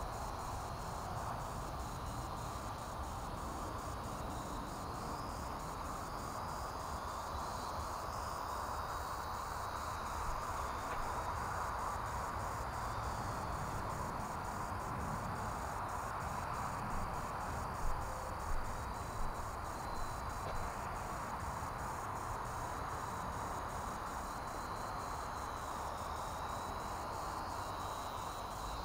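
Steady evening chorus of insects, a continuous even hiss with a faint wavering high note above it. A few soft taps come just past the middle.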